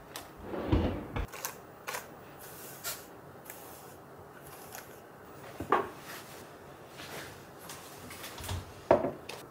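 Small objects being handled and set down close by: scattered knocks and clicks with light rustling between, the loudest about a second in, near six seconds and near nine seconds.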